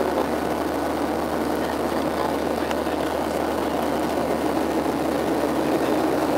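Boeing 737-700's CFM56 turbofan engines running steadily at climb power, heard inside the cabin by a window over the wing as an even, unchanging rush of engine and air noise.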